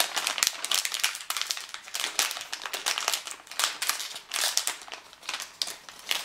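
A bag of mint Aero Bubbles being pulled open and handled. The wrapper gives a dense run of irregular crinkles and crackles.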